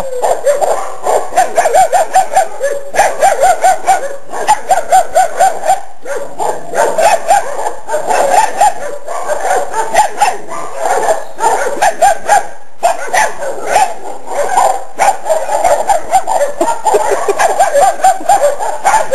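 Dogs barking and yapping excitedly in fast runs of short yaps, several a second, in bursts with brief pauses between.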